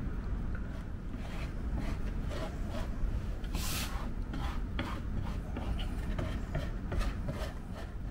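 Wood glue being squeezed from a bottle and spread by hand over a plywood strip: a run of short, irregular rubbing strokes on the wood, the loudest and longest about three and a half seconds in.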